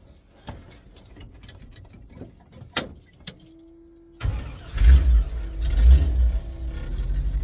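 A truck engine starting: a few clicks and knocks, then about four seconds in it catches with a loud rumble, revs twice and settles into a steady idle.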